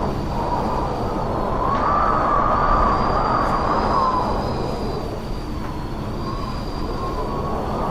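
Gale-force wind howling: a steady rumbling rush with a thin whistle that wavers up and down in pitch, gusting a little stronger about two seconds in and easing slightly past the middle.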